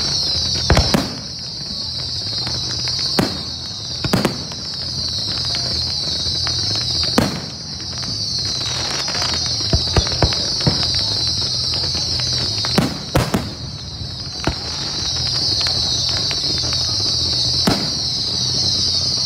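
Fireworks display going off: about a dozen sharp bangs and pops at irregular intervals, over a steady high-pitched hiss.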